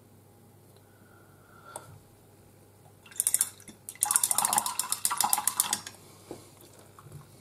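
Paintbrush being rinsed in a water pot: a short clatter about three seconds in, then about two seconds of fast swishing with a rapid run of clicks as the brush knocks against the pot.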